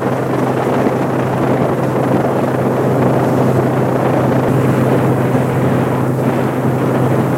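Passenger car ferry under way: a steady low engine hum with the rush of wind and water over the deck.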